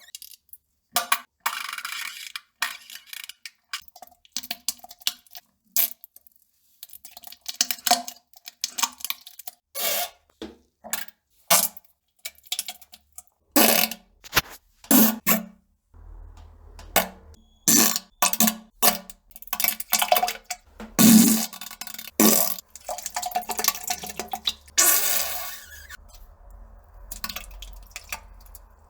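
A long run of short, irregular farts and splats from someone defecating on a toilet, some with a low buzzing note and some as sharp wet clicks, with small plops into the bowl water. A low steady hum comes in about halfway through.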